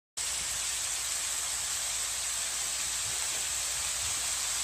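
Steady rain falling, an even hiss that starts suddenly a fraction of a second in.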